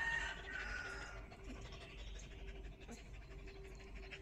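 A baby monkey and a small dog tussling on concrete: soft scuffling and panting. The tail of a rooster's crow trails off in the first second.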